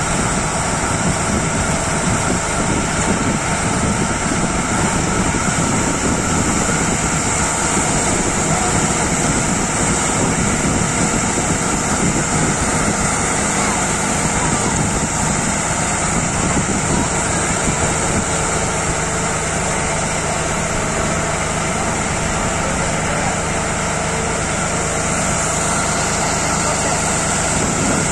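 Tractor-driven grain loader running steadily, a constant engine and machinery drone with a steady hiss, as it lifts grain up its pipe and pours it into a tipper truck.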